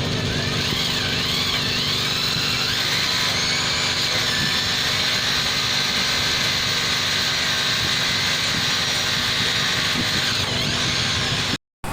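Steady running of an engine or machine, with a high whine that wavers up and down and glides in pitch. There are no hammer blows. The sound cuts out abruptly just before the end.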